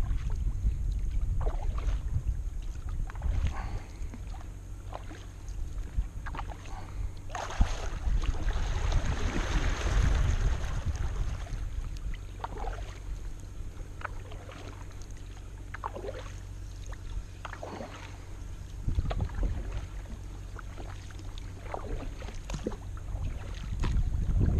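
Kayak paddle strokes: the blades dipping and pulling through the water with drips and small splashes at an irregular pace, over a low rumble.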